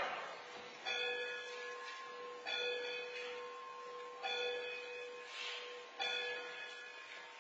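Church bell tolling at a slow, even pace, one stroke about every second and a half to two seconds, each stroke ringing on as it fades.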